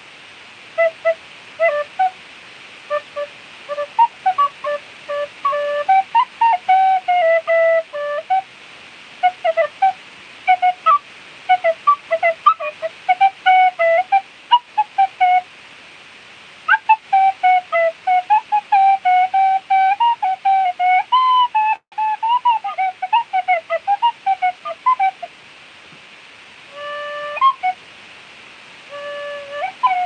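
Clarke Sweettone tin whistle played solo in a free improvisation: a slow, breathy melody of short separate notes and phrases. About two thirds of the way through it runs into a longer stretch of connected, ornamented notes, then pauses briefly before a few more notes near the end.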